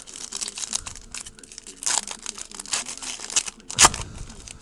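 Wrapper of a baseball card pack crinkling and tearing as it is opened and handled, in irregular crackling rustles, with one louder sharp crackle near the end.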